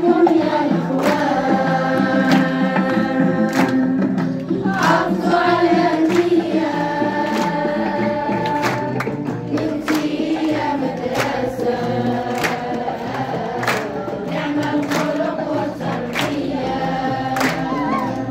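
Music: a group of voices singing a song together over a steady percussion beat.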